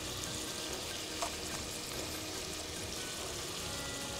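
Boneless chicken sizzling steadily as it fries in a pot, with a single light clink about a second in.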